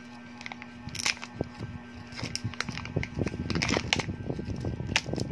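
Foil lid being peeled off a Kinder Joy's thin plastic cup, with the cup handled: crinkling foil and sharp clicks and taps of plastic, scattered at first and growing busier and louder from about three seconds in.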